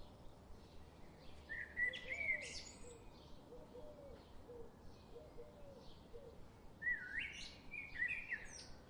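Birdsong: two louder, quick song phrases, one about two seconds in and another about seven seconds in, over faint repeated chirping, with a run of soft, lower calls in between.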